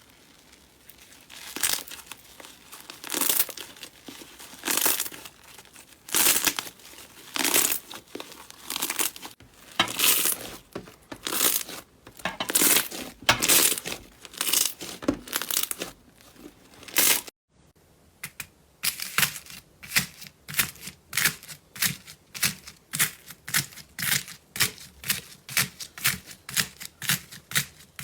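Slime being squeezed and pulled by hand, crackling and crinkling in strokes about every second and a half; after a brief break, a faster run of short crisp crackles, about three a second.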